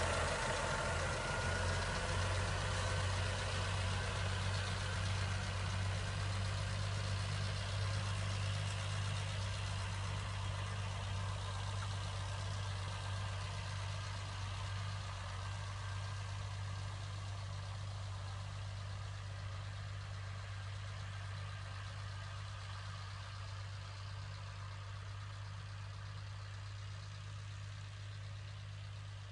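Tractor engine running steadily with a Panter Leo 1000-litre tractor sprayer, a steady hiss over the engine drone. It slowly grows fainter, as if moving away.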